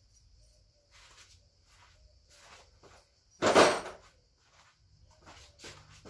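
Household objects being handled and moved about: several faint knocks and rustles, and one loud clatter lasting about half a second roughly three and a half seconds in.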